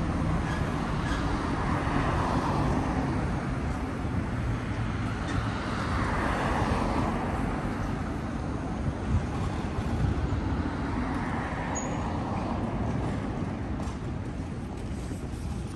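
City street traffic noise: a steady rumble of cars and other vehicles, swelling and fading as vehicles pass, about three times.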